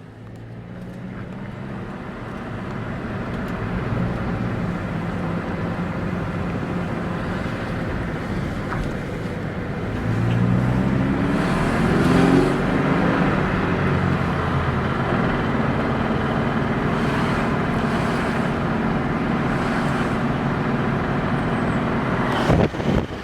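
2013 Scion FR-S's FA20 flat-four engine running, its pitch rising about ten seconds in as it revs up. It carries a knocking noise, plainest in the middle, which the owner suspects is rod knock.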